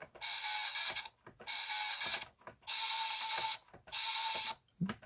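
CSM V-Buckle transformation belt's speaker playing a repeating electronic sound effect: a buzzy, tone-laden pulse of just under a second, four times, with short gaps between.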